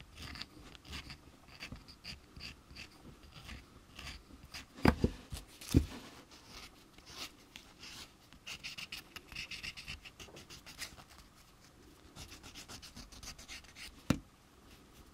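Small plastic model-kit part rubbed back and forth against a sanding block in short, repeated rasping strokes, quickening in places. Two louder knocks come about five seconds in, and there is a click near the end.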